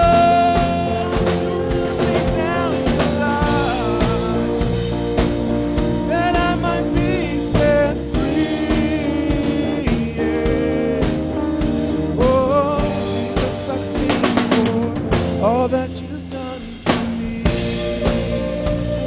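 Live worship band playing: a man and a woman singing into microphones over electric bass, keyboard and drum kit.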